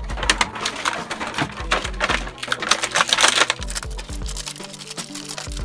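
Clear plastic action-figure packaging, the blister trays and bags, crinkling and clicking as figures are unpacked by hand, thinning out after about three and a half seconds. Background music with bass notes plays underneath.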